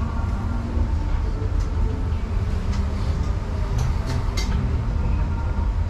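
Ramen shop ambience: a steady low rumble under faint background voices, with a few light clinks.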